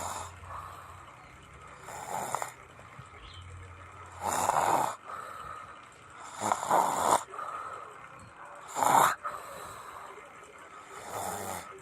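A person snoring: five snores in a row, one about every two seconds.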